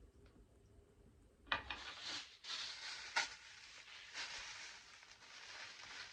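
Close, faint rustling and scratching of a synthetic wig being handled, with two sharp clicks, the first about a second and a half in.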